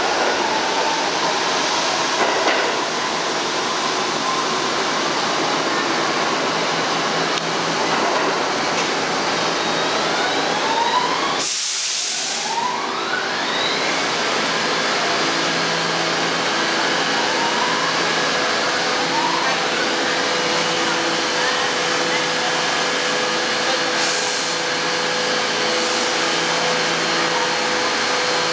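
New York City Subway R68A trains in an underground station: a loud, steady rumble and hiss of steel wheels on rail. Around the middle the traction motors' whine rises in pitch several times as a train accelerates out of the station. In the later part, steady humming tones run under the noise.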